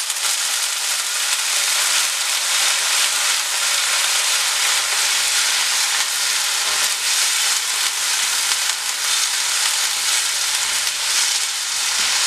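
Taro stir-fry in a hot non-stick pan sizzling steadily as a little water is poured in, with a wooden spatula stirring the pieces through the spiced onion masala.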